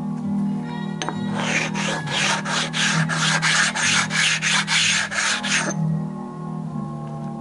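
Flat stone rubbed back and forth across the cast-iron deck of an engine block, a rapid rasping scrape of about three strokes a second. It starts about a second in and stops near the end. The stone is dressing down high spots on the deck before the head gasket goes on.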